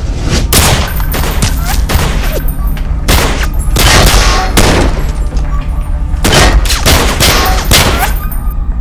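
Handgun gunfire: rapid strings of loud shots in several volleys, over a steady low rumble.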